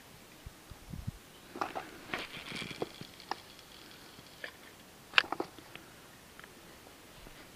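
Spinning rod being cast: a few soft knocks, a brief whirr of line running off the reel, then a sharp click from the reel's bail closing, followed by a couple of smaller clicks.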